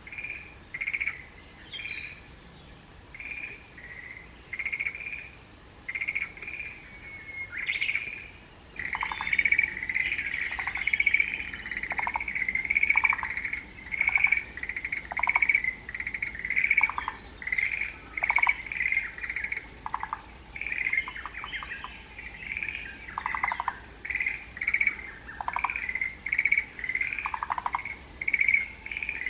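Forest green tree frogs calling in a chorus: short calls repeated over and over, about one a second at first. From about nine seconds in the chorus grows denser and lower, pulsed calls join.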